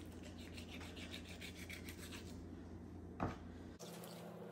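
Kitchen knife sawing through a raw chicken's shoulder joint on a wooden cutting board: a quick run of short scraping strokes, about five a second, then a single sharp knock a little after three seconds in.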